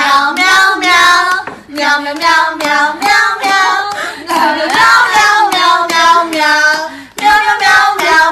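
A high voice singing in quick, short notes with brief breaks between phrases.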